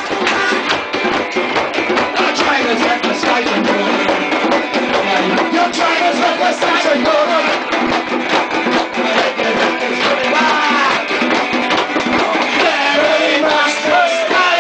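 Live band playing a song: guitar and a hand drum keep up a steady beat under a male singer on a microphone, whose voice comes through more strongly in the second half.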